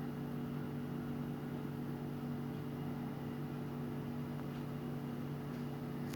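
Steady electrical hum, a low buzz made of several even tones over a light hiss, unchanging throughout.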